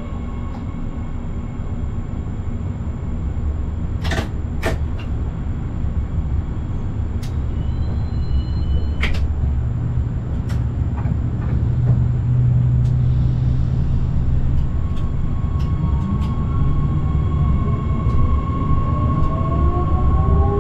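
Forchbahn light-rail train heard from the driver's cab: a steady low rumble with occasional sharp clicks. In the last few seconds a motor whine rises in pitch as the train picks up speed.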